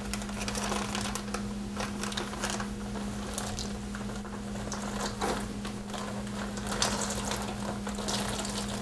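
Plastic bag crinkling as it is opened, then chocolate-coated cereal pieces sliding and scraping out of a metal pan into the bag, heard as many small clicks and rustles. A steady low hum runs underneath.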